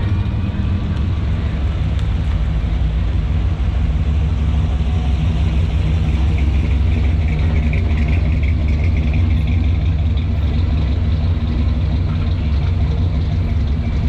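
Classic cars driving slowly past one after another, their engines making a steady low rumble.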